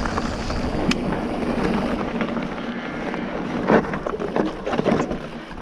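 Wind rushing over the microphone as an e-mountain bike rolls fast over a rough trail, with a few sharp knocks and rattles from the bike about two-thirds of the way through.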